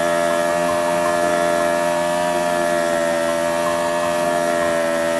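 Naked sport motorcycle's engine held at steady high revs during a rear-tyre burnout.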